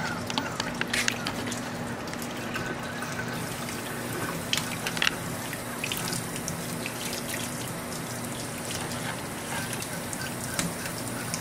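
Water running from a kitchen faucet into a stainless steel sink and splashing over a puppy held under the stream, a steady rush with a few sharper spatters, about half a second in and again around four and a half seconds in.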